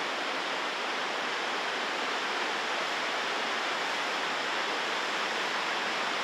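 Rapids of the Chilliwack River rushing: a steady, even wash of white water.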